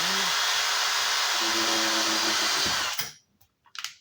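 Power drill driving a screw to fasten an electrical box, running steadily and stopping a little under three seconds in, followed by a few short clicks.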